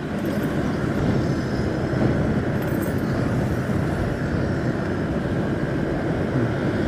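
Steady running noise of a moving road vehicle, a mix of engine, tyre rumble and wind, holding an even level throughout.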